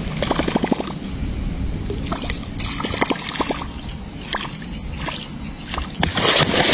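Water sloshing around a small boat with a quick run of clicks near the start and scattered clicks later, then a hooked catfish thrashing and splashing at the surface about six seconds in, the loudest sound.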